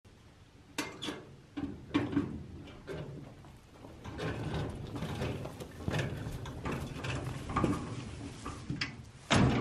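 Small steel utility cart clanking and rattling as it is wheeled by hand over gravel and dry leaves. It starts with a few separate knocks and becomes a steady rattle, with a louder clatter near the end.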